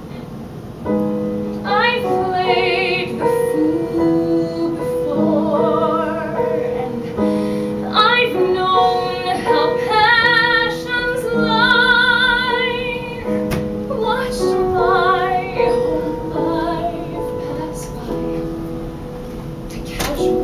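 Woman singing a song live into a handheld microphone, with vibrato on the held notes, over piano accompaniment; her voice comes in about a second in.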